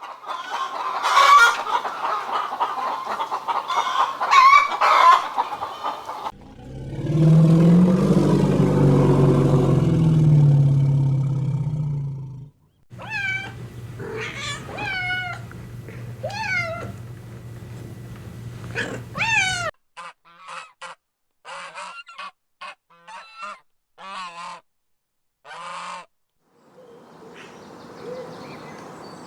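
Farm animal and bird calls in several short clips joined one after another with abrupt cuts, including goose-like honking calls. A long, low-pitched call runs from about six to twelve seconds in, followed by gliding high calls and then short chirps.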